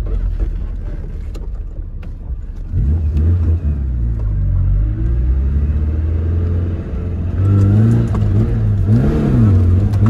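Tofaş Doğan SLX's four-cylinder engine heard from inside the cabin while driving. It starts as a low rumble; about three seconds in the engine picks up and pulls steadily, and over the last couple of seconds the revs rise and fall several times in quick swings.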